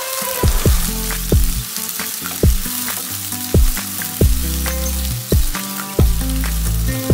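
Sliced onions sizzling in oil in a nonstick pan as a wooden spatula stirs them. Background music with a deep beat about once a second plays over the sizzle.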